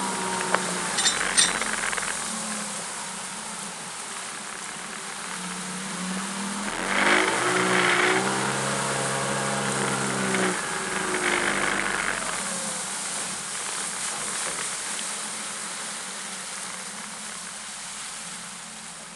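Mercury 200 outboard motor running under way, with the rush of wind and water. About seven seconds in it revs, its pitch rising and then falling, and near the end it eases off and grows quieter.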